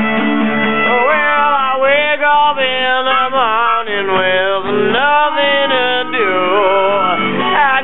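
Blues harmonica wailing with bent, sliding notes over strummed acoustic guitars. The harmonica comes in strongly about a second in.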